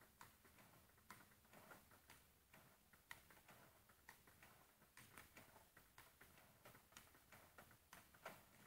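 Faint, quick clicks of a table tennis ball, about three a second, as a ball robot feeds it and it bounces on the table and is struck back with a paddle.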